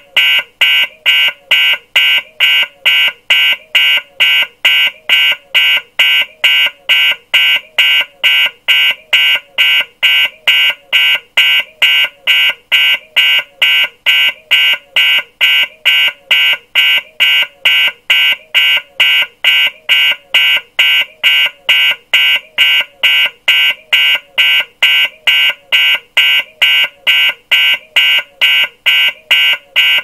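Electronic alarm beeping, a fast, even run of high-pitched beeps, about two a second, without change.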